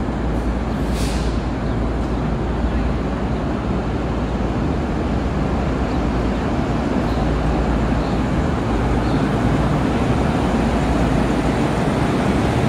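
V/Line VLocity diesel multiple unit running into the platform and rolling past at close range: a steady diesel drone and rumble that grows a little louder as the train draws alongside. There is a short hiss of air about a second in.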